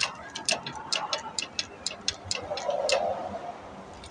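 Motorcycle rear wheel spun by hand, its turning drivetrain clicking at a steady rate of about four to five clicks a second. A brief rubbing sound builds near three seconds and ends in a louder click, after which the clicking goes on more faintly.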